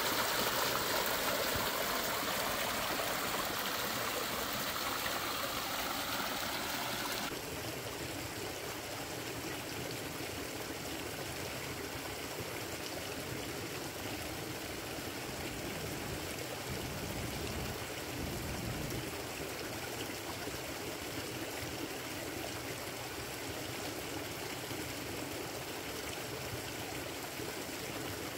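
A small mountain stream running and splashing down a mossy rock cascade, a steady rushing of water. About seven seconds in it drops suddenly to a fainter, steady stream sound.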